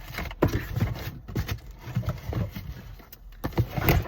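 Cardboard box and its contents being handled and rummaged through: irregular knocks, thumps and scrapes.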